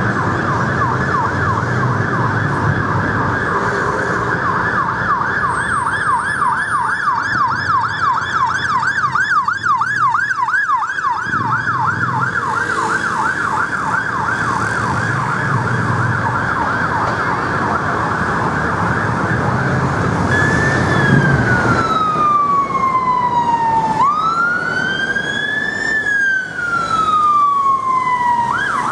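Sirens of Honda ST1300 ambulance motorcycles responding through traffic. First a fast yelp, rising and falling about three to four times a second. About twenty seconds in it changes to a slow wail that sweeps down and back up over a few seconds each, over steady city traffic noise.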